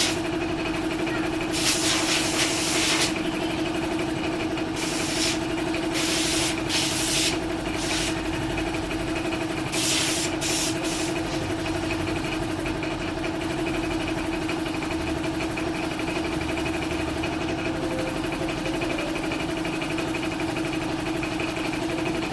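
A steady mechanical hum holding one fixed pitch, with five or so short bursts of hissing in the first half, each lasting up to about a second and a half.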